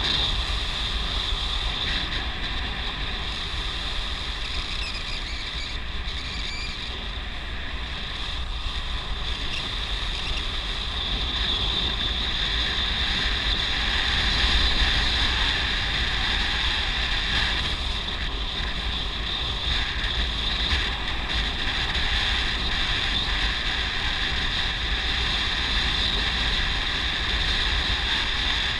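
Wind buffeting the microphone on a moving vehicle, a steady rush with a deep flutter, over a constant high-pitched hiss.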